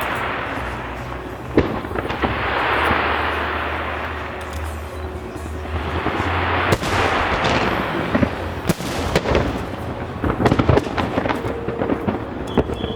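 Aerial fireworks bursting: long crackling, hissing swells, then from about eight seconds in a rapid string of sharp bangs and crackles.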